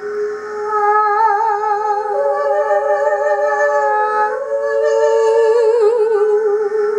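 Voices holding long, wordless notes with a wide vibrato; a second, higher voice joins about two seconds in and drops out a couple of seconds later, and the lower note wavers more near the end.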